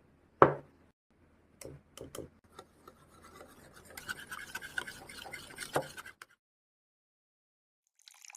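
Kitchen utensil sounds: a sharp knock, a few light clinks, then about three seconds of scraping and stirring that ends in another knock, cut off abruptly a little after six seconds.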